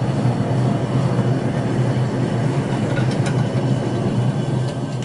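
Gas forge burner running: a steady, loud rush of burning gas with a strong low hum, and a few faint ticks about three seconds in.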